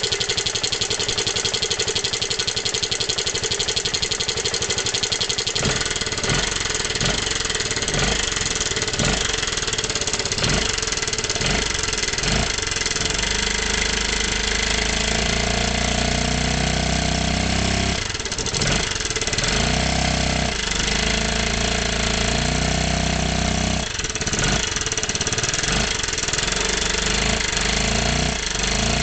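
Yamaha Majesty 250 scooter's single-cylinder four-stroke engine cranked on the starter for about five seconds, then catching and running, revved up and down several times. The engine is being started for its abnormal noise.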